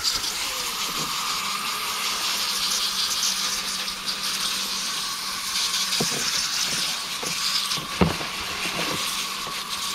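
Garden hose spray nozzle running steadily, spraying water onto a cleaned blue crab to rinse it out. There are a couple of faint knocks about six and eight seconds in.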